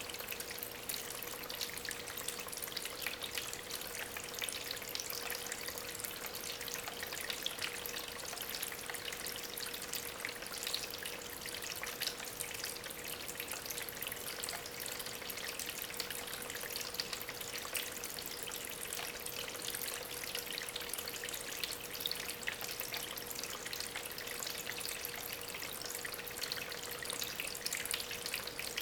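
Small homemade waterfall running steadily: water trickling and splashing over stones, with a thin steady hum underneath.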